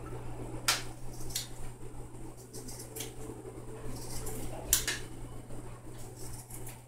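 Scissors snipping through a strip of soaked rawhide: several sharp, irregular cuts over a steady low hum.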